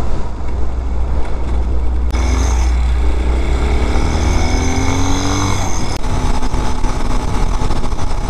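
The Vitacci Raven 250's 229cc air-cooled engine running under way, with heavy wind rush over the microphone. In the middle it rises in pitch for a few seconds as the bike accelerates.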